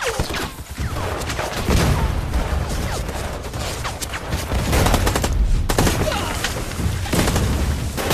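Heavy gunfire in a battle scene: dense, overlapping volleys of rifle and machine-gun fire that never lets up.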